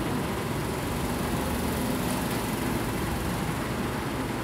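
Steady low hum and hiss of background room noise, with no distinct event.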